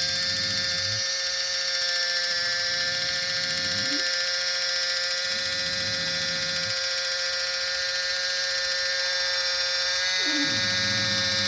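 Kitchen Mama battery-powered electric can opener running steadily, its small motor giving a constant whine as the opener cuts its own way around the rim of the can.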